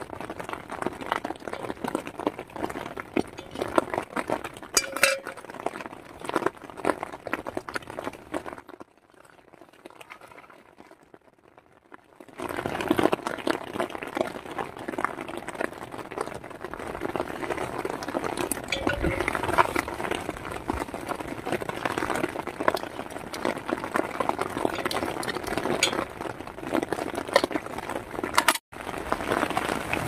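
Rain pattering steadily on the tent fabric, a dense run of fine taps, with a quieter stretch about nine seconds in; a few light clinks of a fork against a bowl come through with it.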